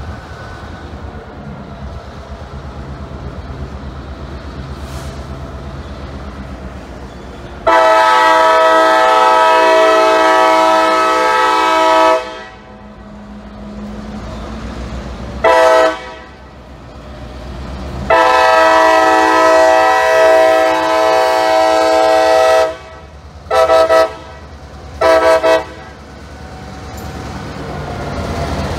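Diesel freight locomotive's multi-note air horn blowing close by: a long blast of about four seconds, a short toot, a second long blast, then two quick toots. The low rumble of passing railcars runs underneath.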